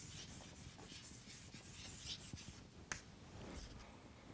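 Chalk writing on a chalkboard: faint scratching with small taps as the words are written, and one sharper tap about three seconds in.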